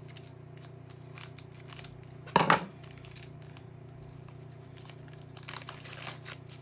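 A wrapper on a pack of baseball trading cards being opened by hand, with crinkling and one loud, sharp tear about two and a half seconds in, then more crinkling near the end, over a steady low hum.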